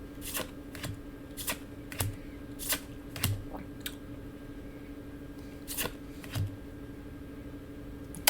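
Weiss Schwarz trading cards being flipped through one at a time by hand, each card making a short snap or slide, about nine of them at an uneven pace and most in the first half. A faint steady hum sits underneath.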